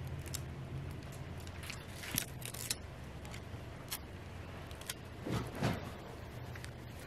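Fingers handling and peeling a small planner sticker off its plastic backing: faint scattered crinkles and clicks, then two soft rustles about five seconds in as it is pressed onto a paper page. A steady low hum runs underneath.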